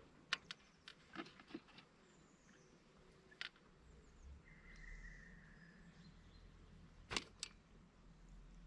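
Near-silent lakeside ambience broken by a scatter of small, sharp clicks and taps as fishing tackle is handled: several in the first second and a half, one in the middle and two close together near the end.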